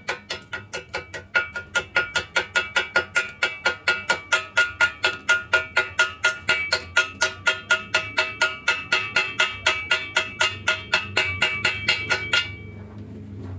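Pointed chipping hammer rapidly tapping a stick weld on a steel square tube, knocking off the slag, at about four to five strikes a second. Each strike makes the hollow tube ring with a bell-like metallic tone. The strikes stop near the end.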